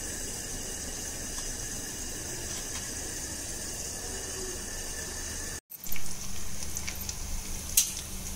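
A steady hiss, then a brief cut about two-thirds of the way through. After the cut, potato cubes and cumin seeds sizzle in hot oil in an iron kadai, with a loud surge just after the cut and a sharp crackle near the end.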